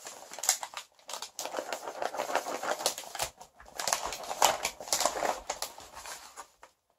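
Brown kraft paper wrapping of a parcel crinkling and rustling as it is handled and turned over, a quick run of crackles with short pauses.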